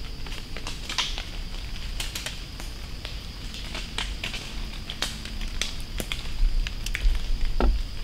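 Acorns falling from oaks, knocking through branches and dropping onto dry leaf litter in an irregular patter of small clicks and taps like light rain, with a few heavier knocks near the end.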